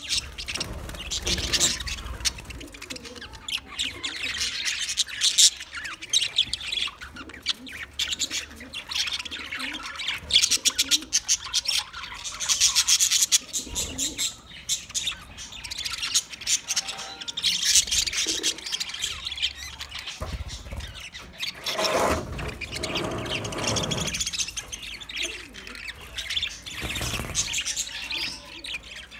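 A flock of budgerigars chirping and warbling together in constant overlapping chatter, with a louder, lower squawk about two-thirds of the way through.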